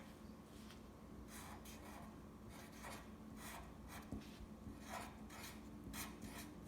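Faint scratching of a black crayon writing on paper, in a run of short, irregular strokes as a word is written out.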